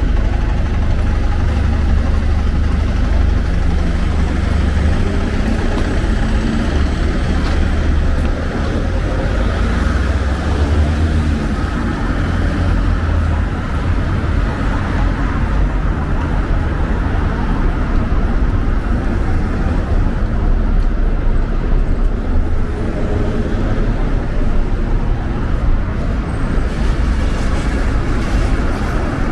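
Steady city street traffic: road vehicles running past with a constant low rumble.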